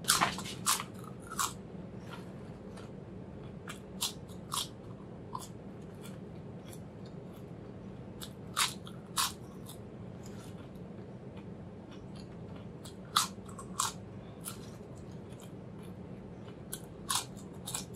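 Crisp ridged potato chips being bitten and chewed: sharp crunches in short clusters roughly every four seconds, over a faint steady low hum.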